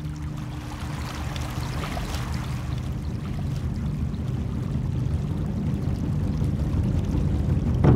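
Shallow stream water rushing over stones, a steady noisy rush that grows gradually louder, with a sudden louder hit right at the end.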